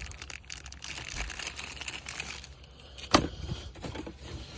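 Handling noises of small install parts and wires being rummaged through: soft rustling and light clicks, with one sharp click or knock about three seconds in.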